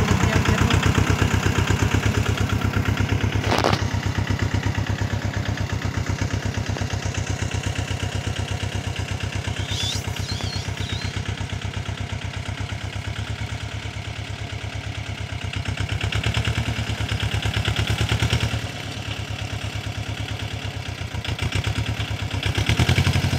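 Mahindra Jivo 245 DI compact tractor's two-cylinder diesel engine running steadily as it pulls a tillage implement through orchard soil, the level swelling and easing a little as the load changes. A single sharp knock about three and a half seconds in.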